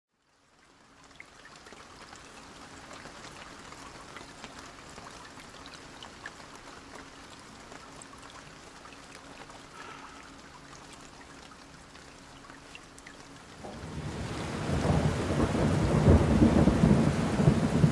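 Rain-and-thunder sound effect: steady rain, with a deep thunder rumble that swells up about fourteen seconds in and stays loud to the end.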